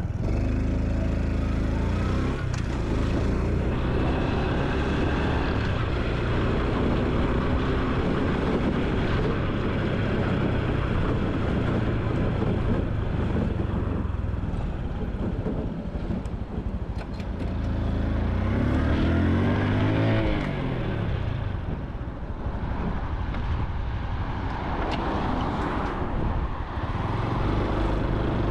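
Honda Super Cub C125's single-cylinder four-stroke engine and exhaust running on the move, under steady wind noise. The engine pitch climbs and then drops about two-thirds of the way through, with a smaller rise near the end.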